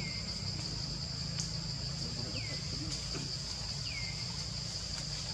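Forest ambience: a steady high insect drone over a low rumble. A short falling call comes three times, about every second and a half.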